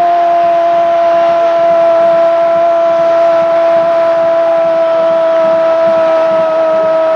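A sports commentator's long held goal cry, "gooool", on one sustained note that starts to sink in pitch near the end, over steady crowd noise.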